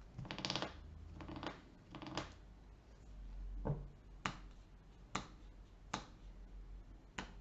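Magic cards being handled on a table: a few soft rustles, then a series of sharp single clicks about a second apart, faint.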